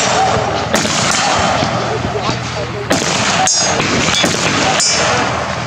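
Rifle shots in a 2-gun match stage: three single shots roughly two seconds apart, with people talking quietly in between.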